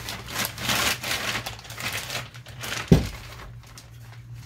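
Clear plastic bag crinkling and rustling as a wooden rifle stock is pulled out of it, with a single low thump about three seconds in as the stock comes down on the workbench.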